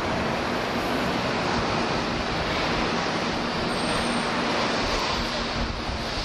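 Steady rushing wind and traffic noise on the open top deck of a moving double-decker tour bus, with a faint steady hum underneath.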